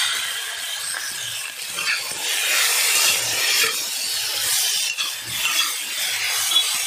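Cubes of elephant ear yam frying in hot oil in a wok: a steady sizzle, with repeated scrapes of a flat metal spatula turning them about once a second.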